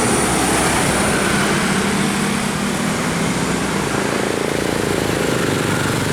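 Bus engine running close by: a steady low drone with road noise. No telolet horn melody is sounding.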